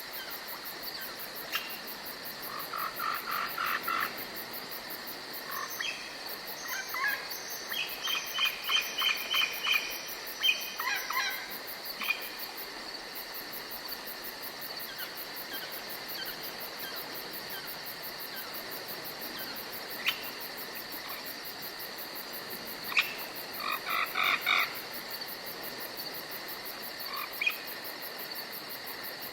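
Night forest ambience: a steady, high chirring of crickets and other insects, broken by several bursts of short, rapidly repeated frog croaks.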